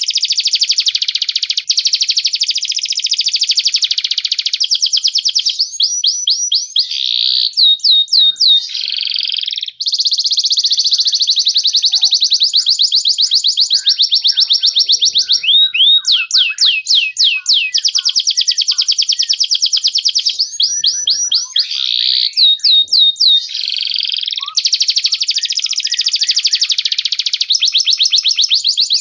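Domestic canary singing: long, very fast trills broken three times by runs of rising swept notes.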